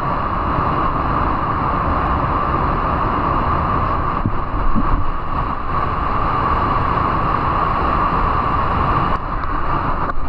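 Steady rushing of a waterfall, a loud, even noise with no breaks.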